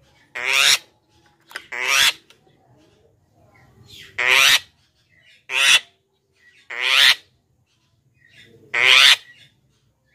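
Javan myna calling: six loud, harsh, scratchy calls about half a second each, coming every second or two with a longer pause in the middle.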